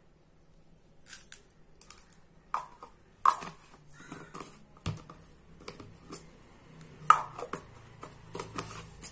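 Small beads and plastic jars being handled: beads rattling, and a jar's plastic screw lid being turned and set down. Scattered clicks and light knocks start about a second in.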